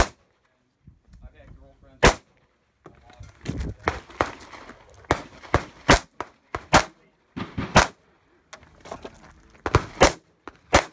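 1911 pistol firing about a dozen shots, irregularly spaced, some in quick pairs and with pauses of up to two seconds between strings.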